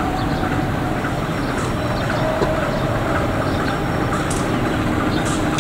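Diesel-electric locomotive engine running steadily as the locomotive rolls slowly along the station track, pulling a passenger train.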